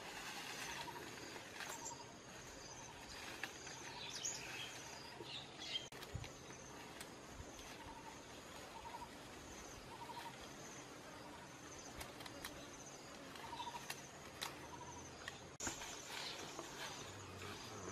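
Outdoor ambience in dense vegetation: short trilled chirps repeat every second or two over a steady background hiss, with a few brief clicks of leaves and twigs being handled.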